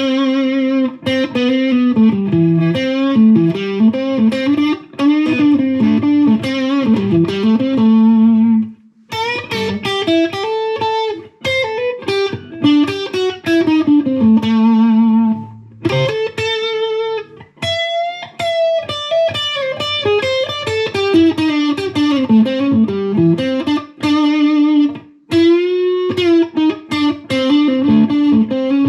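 Fender Stratocaster electric guitar on its single-coil pickups, played through a Fender Mustang GTX100 modelling amp on a blues preset. It plays single-note lead lines with string bends, broken by short pauses about 9 and 16 seconds in.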